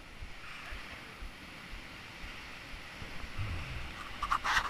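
Heavy sea surf breaking over rocks: a steady rush of water, with a deeper rumble building about three and a half seconds in as a big wave comes in. A voice cuts in just at the end.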